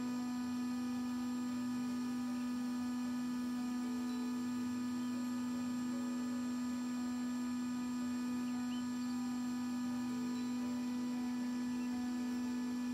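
Parkside PHLGA 20-Li A1 cordless heat gun running continuously at its 550 °C maximum: a steady, unchanging hum-like motor tone.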